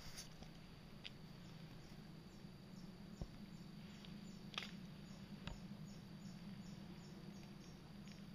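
Quiet woods: a faint high insect chirp repeating about three times a second over a low steady hum, with a few faint taps.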